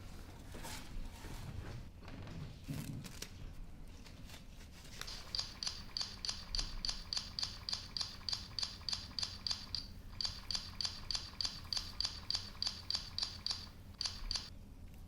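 Barber's scissors snipping hair in a quick, steady rhythm of about three sharp snips a second, with a brief pause partway through. The first few seconds hold only a few scattered handling knocks.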